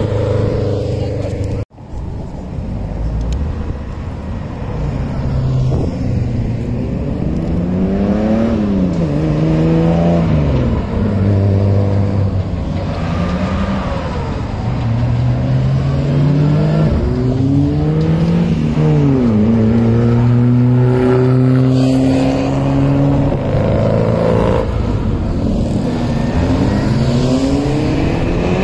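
Car engines accelerating hard, their revs rising and then dropping again several times as gears change, with cars passing by. The sound cuts out for an instant about two seconds in.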